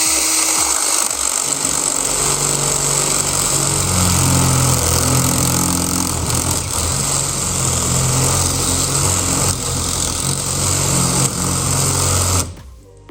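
Power drill running hard, boring into a metal lock cylinder with a larger bit. The low hum shifts in pitch as the load changes, and the drill stops abruptly after about twelve seconds.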